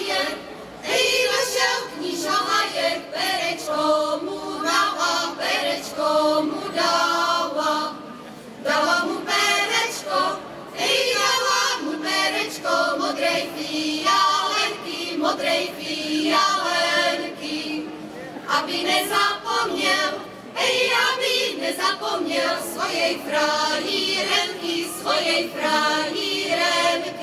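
Women's folk choir singing together unaccompanied, in long phrases with short pauses for breath between them.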